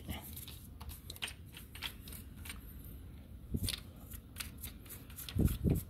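Small toothbrush scrubbing a motorcycle's greasy front sprocket, making quick, irregular bristle scratches on the metal, with a dull thump near the end.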